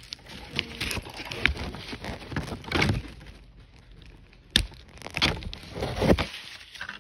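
Hands handling a plastic doll and its small plastic accessories and packaging: scattered clicks, taps and rustling, with one sharp click about four and a half seconds in.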